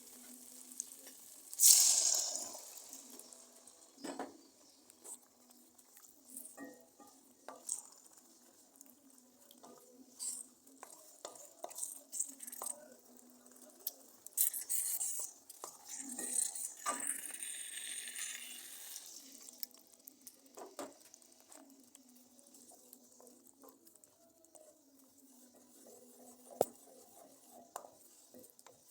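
Cooking in a pot on the stove: scattered knocks and clicks of a utensil against the pot while stirring, with a loud hiss about two seconds in that dies away over a second, and more hissing from about fourteen to nineteen seconds in.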